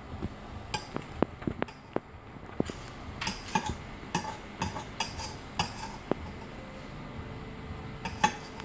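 Metal spoon clinking and scraping against a bowl as food is stirred and scooped, a string of light, irregular taps.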